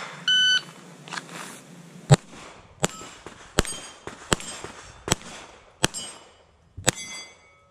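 Electronic shot timer beeps once, then a pistol fires seven shots at steel plates, roughly one every three-quarters of a second, the first about two seconds after the beep. A brief metallic ringing follows the last shot.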